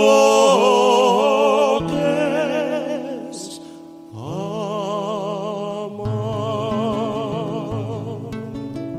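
Habanera sung with guitar accompaniment. A voice holds a long note with vibrato at the start, then a second long vibrato note comes in about four seconds in, with plucked guitar and bass notes under it toward the end.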